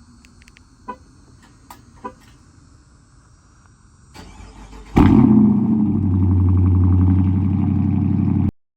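Dodge Charger's Hemi V8 with a very loud exhaust starting up. The starter cranks for under a second, the engine catches with a loud flare about five seconds in, then settles into a steady idle. A few faint clicks come before, and the sound cuts off suddenly near the end.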